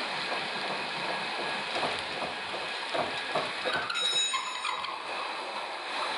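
Metal lathe running while machining a workpiece: a steady hiss with irregular clicks and rattling, and a brief high-pitched squeal about four seconds in.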